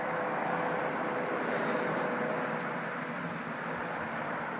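Eurocopter EC135 police helicopter circling high overhead: a steady drone of rotor and turbines with a faint held tone in it, easing a little near the end.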